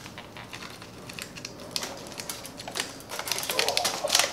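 Light metal clicking, scraping and crinkling as steel tongs grip a stainless-steel-foil-wrapped blade and draw it out of an electric heat-treat kiln, growing busier and louder near the end.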